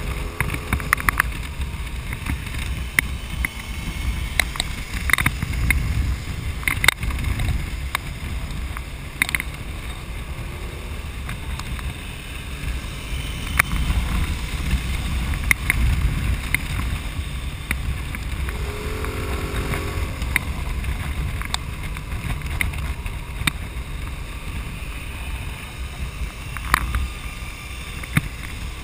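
Wind buffeting a camera mounted on a moving motorcycle, over the low steady rumble of engine and road at cruising speed, with frequent sharp clicks and knocks. A short wavering pitched sound comes through about two-thirds of the way in.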